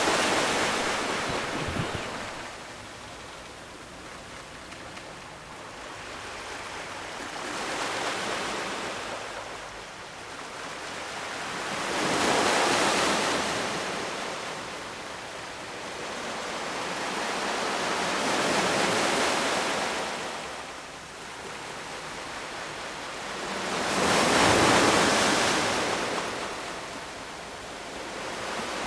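Ocean waves breaking and washing up the shore in slow swells, with louder surges about every six seconds.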